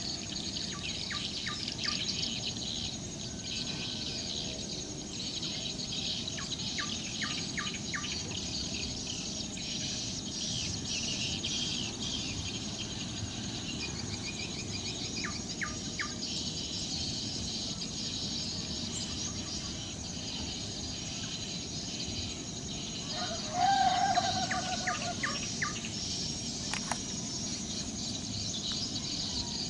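Birds chirping and calling, many short chirps, over a steady high insect drone such as cicadas or crickets. A louder, lower call about two-thirds of the way through stands out briefly.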